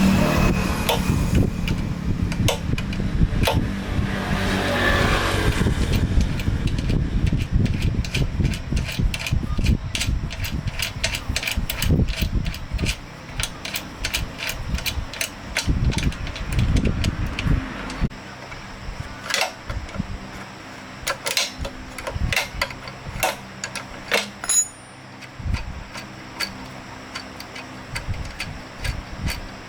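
A small generator engine running with a steady hum. About two-thirds of the way through it drops suddenly to a quieter hum, and repeated sharp clicks are heard over it.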